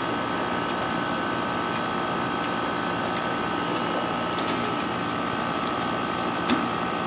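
3-ton R-410A split-system condensing unit running steadily during a pump down, a continuous mechanical hum with a steady high whine over it. A single sharp click about six and a half seconds in.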